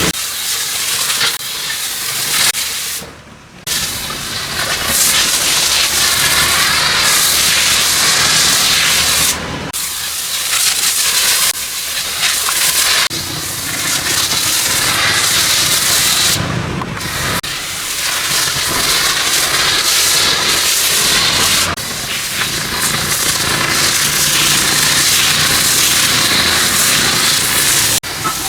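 Pressure washer spraying a high-pressure jet of water onto a car, a loud steady hiss that stops briefly a few times as the trigger is released.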